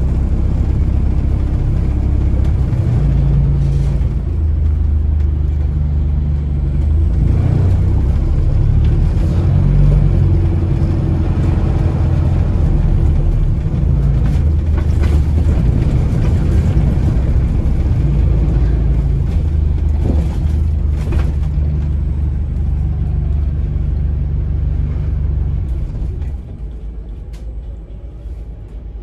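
Alexander Dennis Enviro400 MMC hybrid double-decker bus under way, heard from inside: a heavy low rumble from the drivetrain and road, which drops to a clearly quieter level about 26 seconds in.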